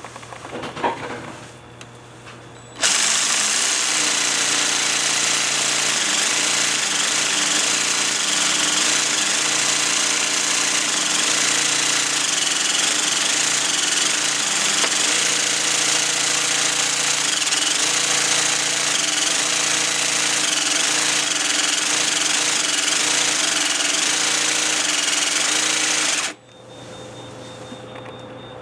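Craftsman cordless jigsaw with a Bosch T130DG diamond-grit blade cutting through ceramic tile: the saw starts abruptly about three seconds in, runs loudly and steadily with its pitch wavering slightly as it works through the cut, and cuts off suddenly near the end. A single knock comes shortly before the saw starts.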